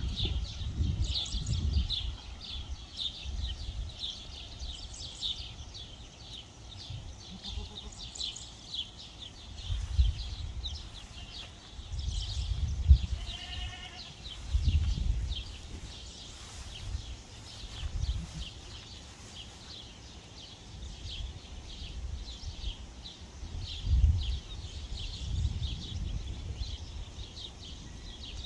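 Domestic goose bathing in a plastic kiddie pool: water splashing and dripping throughout, with irregular low thumps as it dips and shakes. A short bleat-like animal call comes about halfway through.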